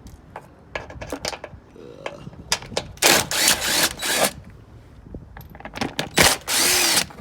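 A power drill with a 10mm socket running in short bursts, backing out the bolts that hold the bumper to the frame. Between the bursts come sharp clicks and clinks of the socket and loose metal bolts.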